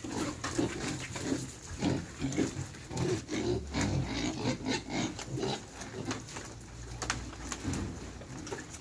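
Domestic pigs and piglets grunting over and over in short grunts while they are fed, with sharp crunching clicks as they chew ice cream cones.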